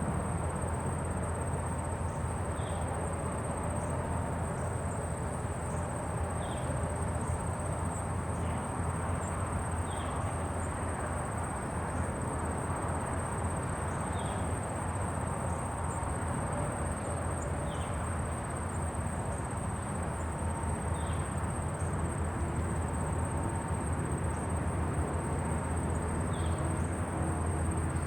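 Countryside ambience: a steady high-pitched drone of insects such as crickets over a low rumble of wind, with a short chirp repeating about every three to four seconds.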